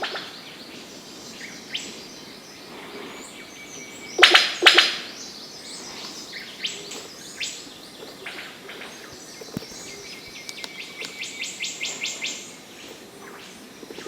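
Rainforest birds calling over a background hiss of the forest. A few loud, sharp call notes come close together about four seconds in, and a quick run of ticking notes sounds for about two seconds near the end.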